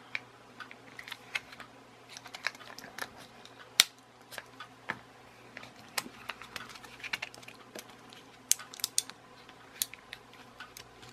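Irregular small clicks and taps of hard plastic as a toy car's plastic chassis and friction-motor unit are turned and worked in the fingers. One sharper click comes about four seconds in.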